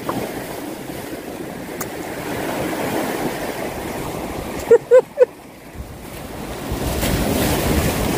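Sea waves washing over shoreline rocks, swelling into a louder surge near the end, with wind on the microphone. Three short pitched sounds come about five seconds in.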